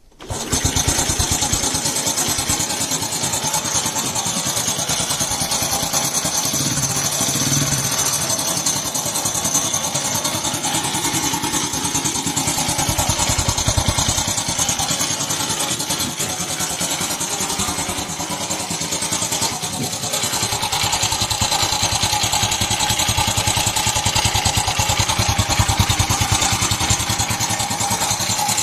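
Modified Honda Super Cub's bored-up air-cooled single-cylinder four-stroke engine starts right at the beginning, then runs steadily with an even firing beat. It is running with an abnormal noise whose source the owner is trying to find.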